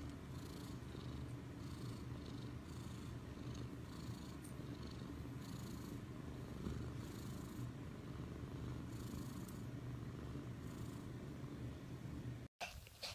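Cat purring steadily up close, a continuous low rumble, while a newborn kitten nurses at its mother. It cuts off abruptly near the end.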